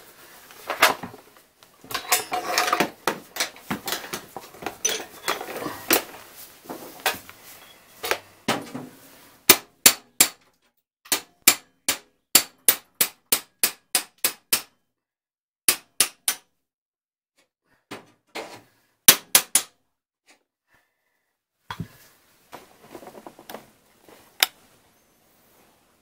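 Cordless drill boring a test hole in a sheet-metal boiler flue pipe, running in irregular grinding spurts for several seconds. These are followed by a long run of sharp metallic clicks, about two or three a second, then a few fainter ticks.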